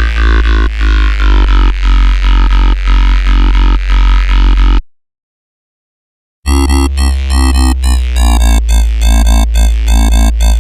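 Synthesized electronic bass line loops in a dubstep style, with a heavy sub-bass and a pulsing rhythm. One loop cuts off about halfway through, and after a second and a half of silence a second, choppier bass loop starts.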